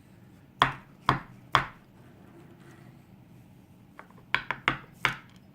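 Sharp knocks of a cut-open DOM ix dimple lock housing being rapped on a hard surface to shake its top pins out: three separate knocks, then a quick run of about five near the end.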